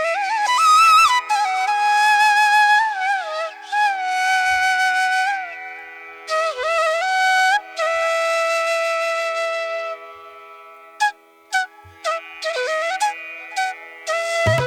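Background music: a single melody line with sliding, bending notes over a steady drone, turning to short detached notes near the end.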